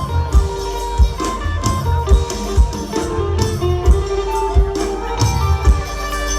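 Live Thai mor lam / luk thung band playing an instrumental passage: sustained melodic lines over a steady drum beat of about two strong beats a second.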